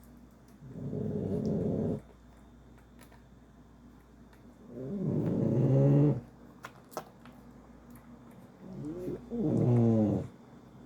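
Loud snoring: three drawn-out snores about four seconds apart, one per breath, the last two with a clear pitch that rises toward the end of each snore.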